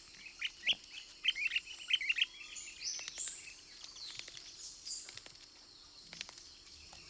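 Forest ambience: small birds chirping in quick runs of short high notes over a thin, steady high insect trill, with a few faint clicks.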